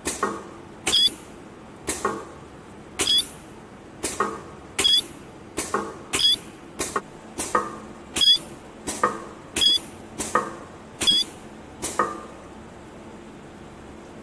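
Ultrasonic spot welding machine welding fabric: a string of short weld pulses, roughly one a second, each a sharp click, many with a brief high-pitched whine. The pulses stop about twelve seconds in.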